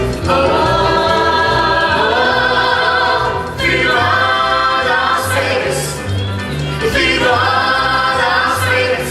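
Live music: a group of voices singing long held chords over a band with a stepping bass line.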